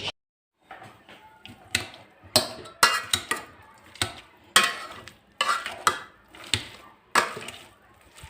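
Dishes and kitchen utensils clinking and knocking together in a series of sharp, irregular strikes, several a second at times.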